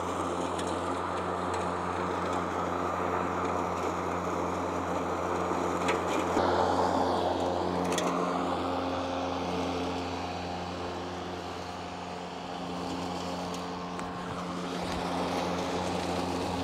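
Mowrator S1 battery-electric remote-controlled lawn mower running with its blade spinning: a steady electric hum, louder for a couple of seconds about six seconds in as it passes close, with a swish of grass being cut.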